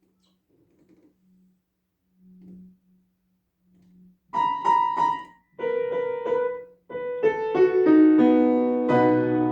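Piano playing after a few seconds of near silence with faint rustles: about four seconds in, three short separate chords, then held chords that build in loudness.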